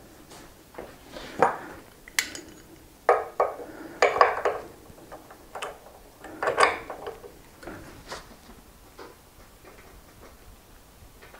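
Sharp metallic clanks and clinks of a ratchet wrench and socket being fitted to and worked on the axle nut of an electric unicycle's hub motor. The loudest clanks come in the first seven seconds; lighter clicks follow.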